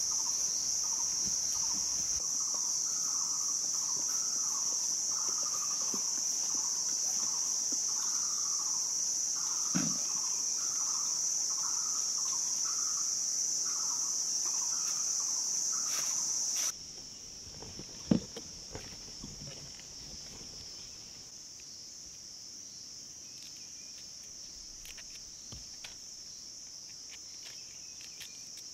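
Outdoor insect chorus: a steady, high-pitched shrilling, with a short rising-and-falling call repeated a little over once a second. About two-thirds of the way through, the shrilling drops abruptly to a fainter drone and the repeated call stops.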